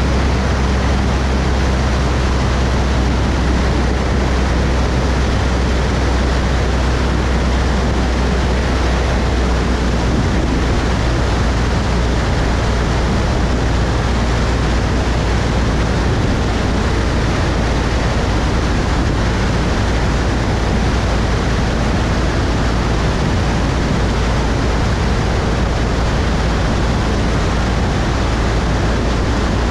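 Cessna 172 in cruise flight: the steady drone of its piston engine and propeller under a constant rushing hiss of air.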